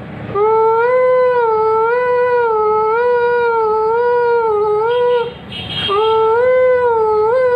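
A man's voice imitating a siren: two long held notes, each gently wavering up and down in pitch, the first about five seconds long and the second starting after a short break near the six-second mark. It is produced in the throat without the mouth moving.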